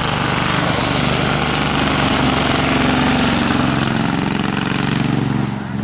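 Pre-war racing car's engine running hard as the car accelerates uphill past, its pitch climbing over the first few seconds and loudest about halfway through, then easing slightly near the end.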